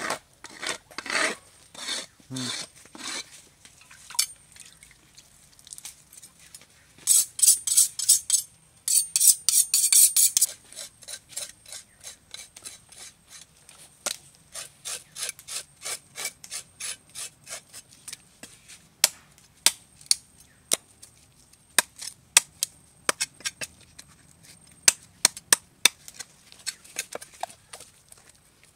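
A knife blade rubbed back and forth on a wooden chopping block, about two strokes a second, then a knife scraping the scales off a red pomfret on the block. The loudest part is a run of fast rasping strokes about a third of the way in, followed by many sharp, irregular ticks of the blade on the wood.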